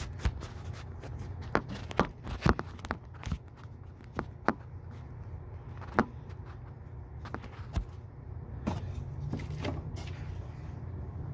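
Scattered clicks and knocks of hand tools being picked up and handled, with footsteps, over a steady low hum.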